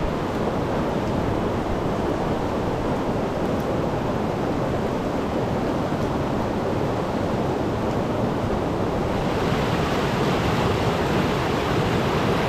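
A river rapid rushing steadily over rocks. About nine seconds in, the rush grows louder and brighter, as if heard much closer to the white water.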